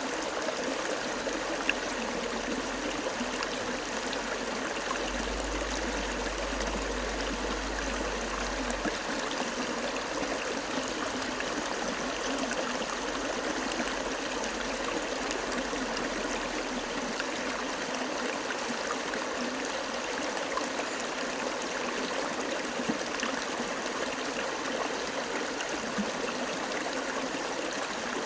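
Water flowing steadily, an even, continuous rush and trickle with no breaks.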